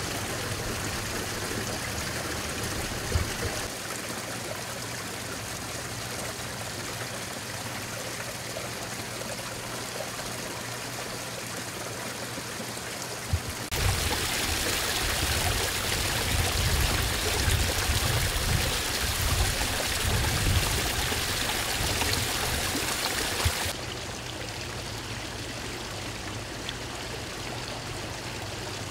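Water from a small rock waterfall splashing steadily into a backyard pond. It is louder and brighter for about ten seconds in the middle, with a steady low hum underneath.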